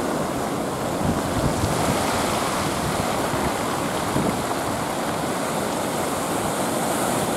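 Sea surf washing and breaking steadily, with wind buffeting the microphone in low gusts: the rough swell left after a typhoon has passed.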